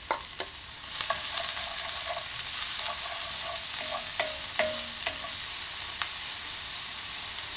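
Diced onion and sliced garlic sizzling steadily in hot olive oil in an enamelled pan while a wooden spoon stirs them, with a few short knocks of the spoon near the start and again a little past the middle. The onion is being sautéed until translucent.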